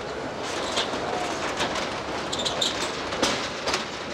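City street ambience: steady traffic noise with scattered short clicks and knocks.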